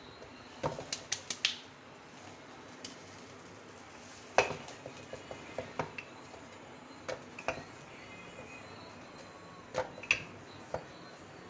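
Wooden rolling pin knocking and clicking against a rolling board as paratha dough is rolled out: scattered sharp knocks, with a quick run of several about a second in and the loudest single knock a little past the middle of the first half.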